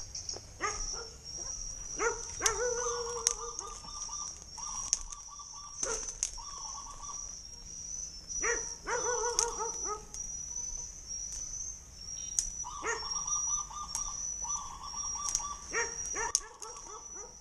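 Repeated animal calls, which may be a dog barking, over a steady high insect drone. There are scattered sharp crackles of dry twigs and brush as a hand pushes through the undergrowth.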